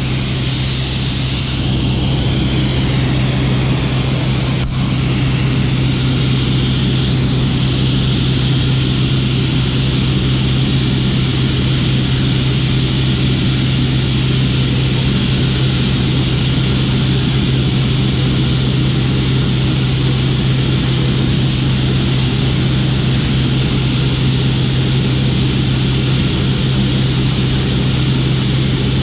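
New Holland TR86 combine running steadily while harvesting corn, heard from inside the cab: a constant drone with a strong low hum. There is a brief click about five seconds in.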